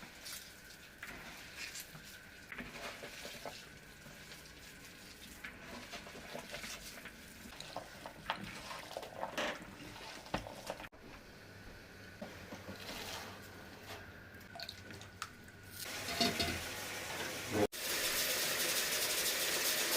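Small kitchen clinks and light water splashes, then, in the last couple of seconds, a loud steady rush of running or pouring water.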